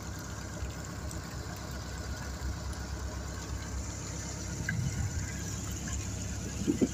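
A boat engine running steadily with a low rumble as the boat moves along the river, with a brief louder sound right at the end.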